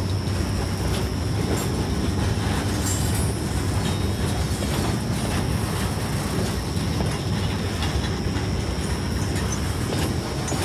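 Loaded freight train rolling past, a steady low rumble of wagon wheels with irregular clicks and knocks as they cross the rail joints, and a thin steady high whine over it.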